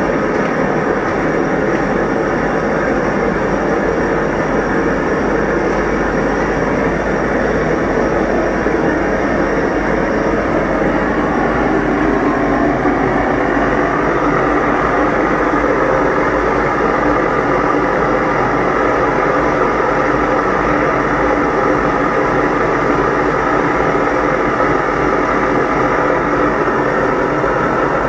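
Gas burner fed from a small gas cylinder, its flame turned up high against a glass pane, burning with a steady rushing noise that grows fuller about halfway through.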